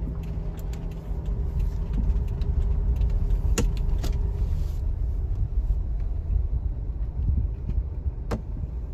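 Low rumble of a car's engine and tyres heard from inside the cabin while driving slowly, with a few sharp clicks, the last about eight seconds in.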